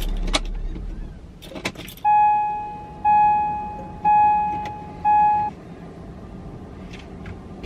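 A few clicks and knocks, then a car's electronic warning chime beeps four times, about once a second, each tone fading away.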